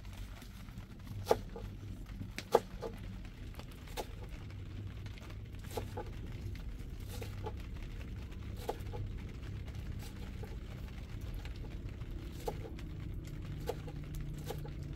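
Curved kitchen knife chopping green onions against a wooden board: irregular sharp knocks, the loudest about a second and two and a half seconds in, then fainter ones, over a steady low hum.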